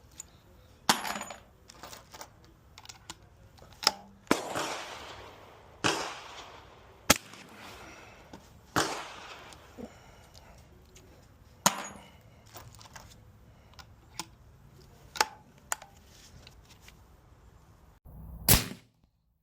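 A series of sharp, suppressed reports from a Rossi LWC break-action rifle in .44 Magnum firing .44 Special rounds through a suppressor, spaced a second or more apart, several trailing off in a short rush of noise. Smaller clicks come between the reports.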